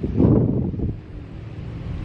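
Strong wind buffeting the microphone in uneven gusts, with a loud gust at the start that eases off after about a second.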